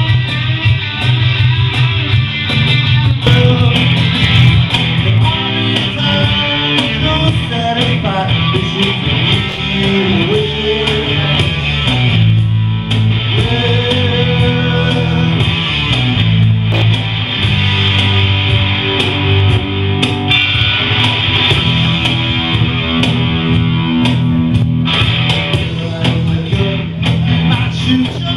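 Live rock music from a small band: strummed guitar over a steady bass line, with a man singing. Played loud and continuous, with a sliding note about halfway through.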